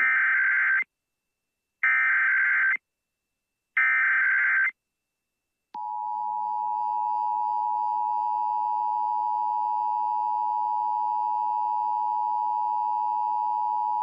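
Emergency Alert System alert tones: three short bursts of the SAME digital header, about two seconds apart, then the steady two-tone attention signal starting about six seconds in. This is the header and attention signal of a Child Abduction Emergency alert.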